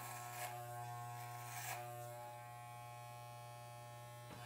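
Corded Wahl electric hair clippers buzzing steadily as they are run over the back of the head, with two brief rasps about half a second and nearly two seconds in.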